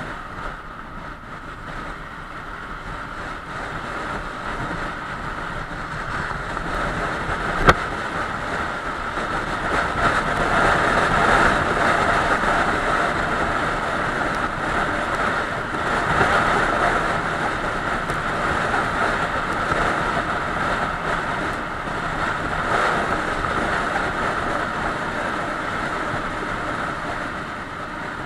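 Steady running noise of a moving vehicle on the road, swelling and easing in level, with a single sharp click about eight seconds in.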